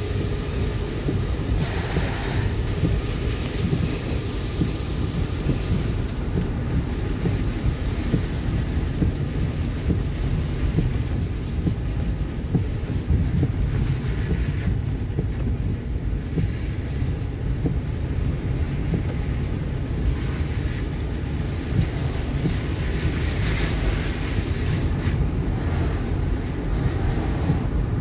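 Steady low rumble of a car driving on a wet road, heard from inside the cabin: tyre and road noise on wet pavement.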